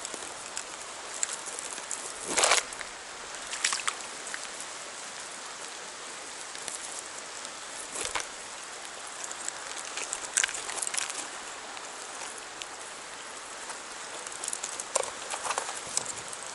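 Steady rush of fast, high river water, broken by a few brief sharp knocks.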